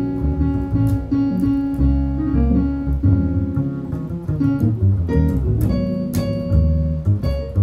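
Jazz trio of piano, guitar and bass playing, with the piano most prominent.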